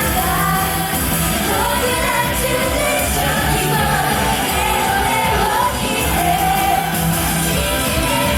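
Live pop-rock music with sung vocals over a full band backing and a steady beat.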